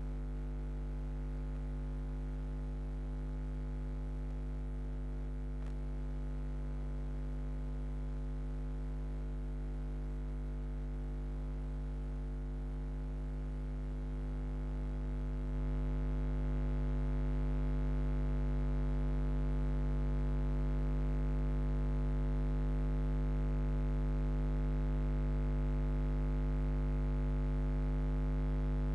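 Steady electrical mains hum in the audio feed: a low buzz with a ladder of overtones, rising a little in level about halfway through.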